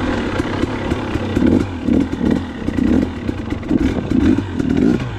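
2019 KTM 250 XC two-stroke dirt bike engine revving in repeated short surges as the throttle is worked on and off on trail, with light clattering and ticking over the ground.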